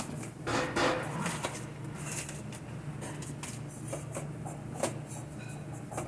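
Scattered knocks and clatters of stainless-steel pans and containers being handled on walk-in chiller shelves, over a steady low hum.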